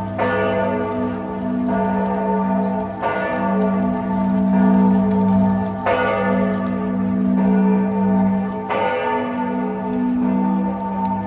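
Church bell tolling, struck four times at an even pace of about one stroke every three seconds, each stroke ringing on into the next.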